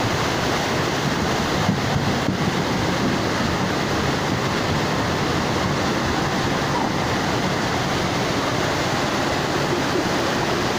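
Muddy floodwater rushing down a street in a fast torrent, a steady, unbroken rush of water.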